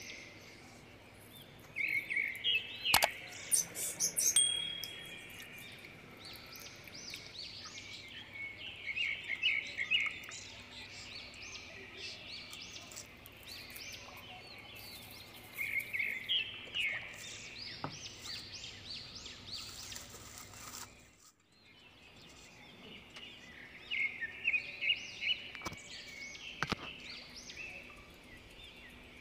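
Small birds chirping in repeated bursts of rapid high notes, with a few sharp clicks near the start. The sound drops out briefly about two-thirds of the way through.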